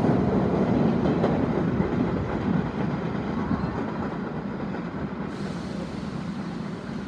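New York City subway train of R68-series cars pulling away along the track: a steady rumble of wheels on rail that fades as it recedes.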